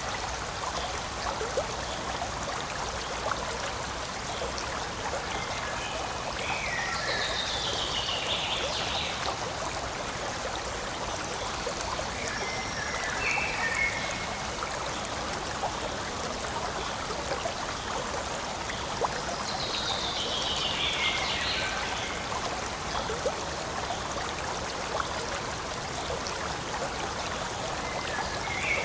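Forest stream flowing over stones: a steady rushing and trickling of water. A few short falling calls rise above it, about four times.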